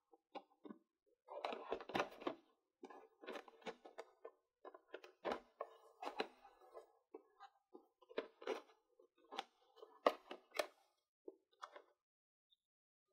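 Small plastic toy pieces and their packaging being handled, with irregular clicks, taps and rustles separated by short pauses.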